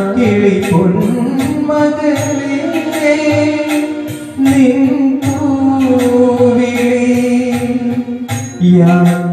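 A man singing a slow melody into a microphone, with long held notes, over backing music with a steady percussion beat.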